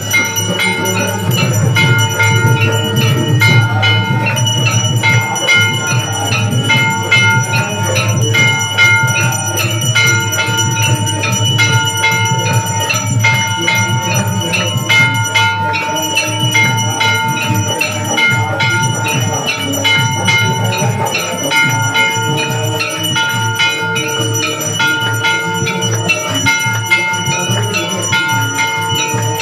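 Brass temple bells rung rapidly and without pause for the aarti, a dense clanging with a steady ringing tone over it and a low rumble beneath.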